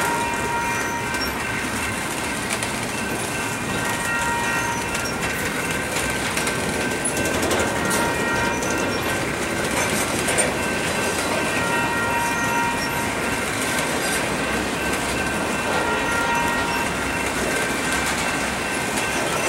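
Loaded double-stack container well cars rolling past: a steady rumble and clatter of steel wheels on rail, with high, ringing wheel squeals that come and go every few seconds.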